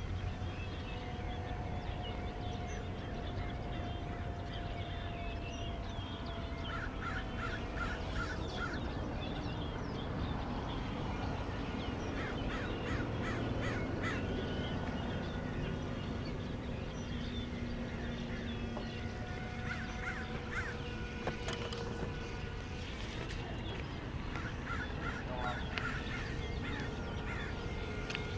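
Birds calling in repeated bursts of quick notes, several times over, against a steady outdoor background with a faint hum that slowly falls in pitch.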